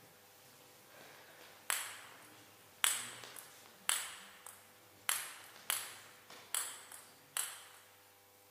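Table tennis ball bounced several times, a sharp click about once a second with a short ring after each and a few weaker follow-up bounces. This is a player bouncing the ball while getting ready to serve.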